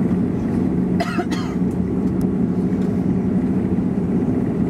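Bombardier Dash 8-Q400's Pratt & Whitney PW150A turboprop engines running on the ground, a steady low propeller drone heard from inside the cabin. A brief cough about a second in.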